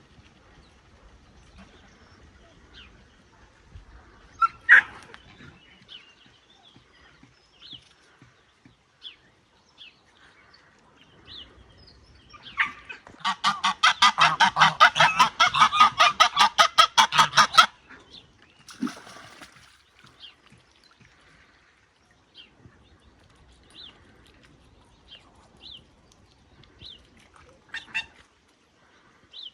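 Waterfowl calling: a fast run of honking calls, about five a second for roughly five seconds, with a few single calls before and after.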